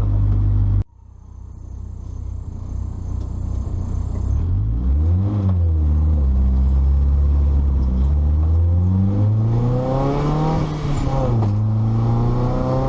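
Nissan 240SX S14 engine revving under load. The sound cuts off abruptly about a second in, then fades back in. The revs rise and fall quickly about five seconds in, climb steadily for a couple of seconds toward ten seconds, drop, and hold steady.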